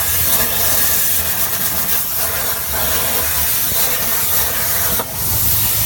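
CNC plasma cutting torch hissing steadily as it cuts metal, over a low machine rumble, with a brief break about five seconds in.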